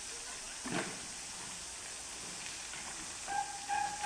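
Rubber tire thumping once against a concrete wall about a second in, worked by a young African elephant's trunk, over a steady hiss of splashing water. A short steady high tone sounds near the end.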